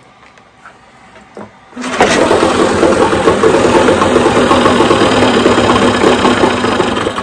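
Old two-stroke outboard motor, its carburetor freshly cleaned, catching about two seconds in and running loudly, then cutting out near the end.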